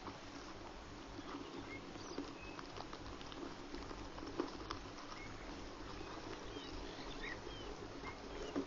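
Outdoor bush ambience: a steady faint hiss with scattered short chirps and a few soft clicks, one sharper click about halfway through.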